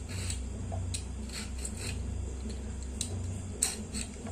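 Hand peeler scraping the ridged skin off a luffa (ridge gourd) in short, irregular strokes, the sharpest a little past three and a half seconds in, over a low steady hum.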